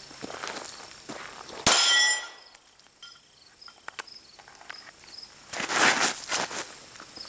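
A single sharp metallic clang about two seconds in, ringing briefly as it fades, with a rustling noise later. Insects buzz steadily behind.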